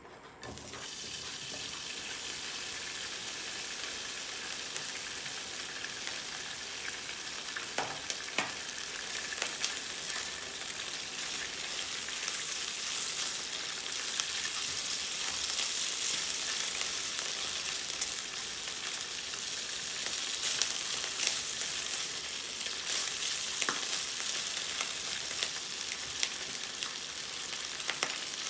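Food sizzling as it fries in a hot pan: a steady frying hiss that starts suddenly and continues, with scattered sharp pops and clicks.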